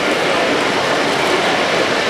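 O-gauge three-rail model train running along the track, a steady rolling rail noise.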